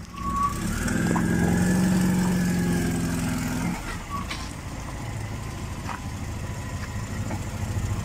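A motor vehicle's engine running: a steady hum, loudest for the first few seconds, that drops to a lower, quieter drone about four seconds in.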